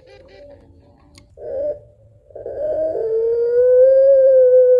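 Ringneck dove (puter pelung, a long-voiced domestic Streptopelia dove) cooing. A short coo about a second and a half in is followed by a loud, long-drawn coo that starts about two and a half seconds in and holds one pitch, rising slightly. It is the long call the breed is kept for, given to call a mate.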